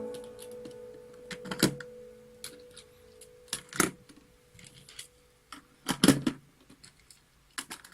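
A few sharp clicks and knocks, a couple of seconds apart with a small cluster near the end, over a faint steady hum that dies away about halfway through.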